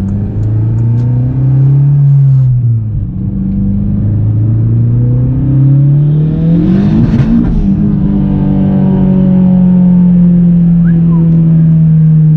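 Turbocharged 8th-generation Honda Civic engine under hard acceleration. It revs up, drops in pitch at a gear change a little over two seconds in, and climbs again. About seven seconds in there is a brief rush of noise, then it holds a high, nearly steady pitch. The engine is running on new colder spark plugs and ignition coils fitted to cure a misfire.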